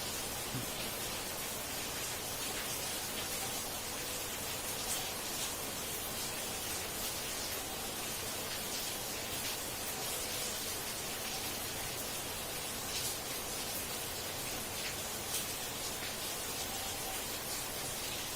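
Steady background hiss with faint, scattered soft ticks.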